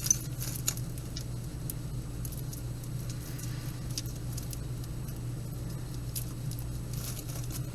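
Costume jewelry being handled: scattered faint light clicks and clinks of metal pieces, over a steady low hum.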